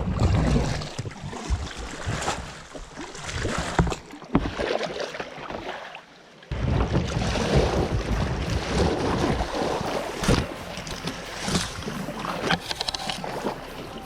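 Kayak running a shallow riffle: water splashing and rushing around the hull with paddle strokes and knocks, and wind buffeting the microphone in the first second or so.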